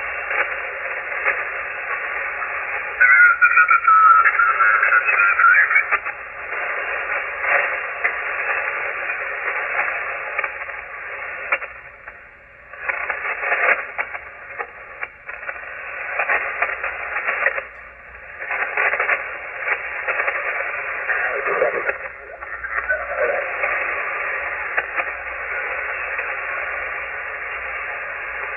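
Shortwave ham radio receiver on the 40-meter band, hissing with static and band noise that swells and fades, with weak, unintelligible voice signals breaking through. About three seconds in, a louder warbling tone cuts through for a couple of seconds.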